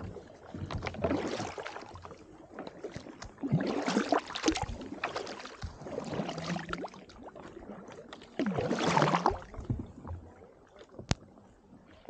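Kayak paddles stroking through slushy, ice-strewn sea water: a swish of water about every two and a half seconds, with scattered sharp clicks between the strokes and one louder click near the end.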